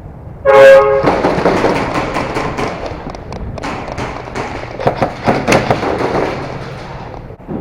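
A short horn blast, the start signal for the round, then about six seconds of many airsoft guns firing rapid bursts, with BBs cracking against walls and props.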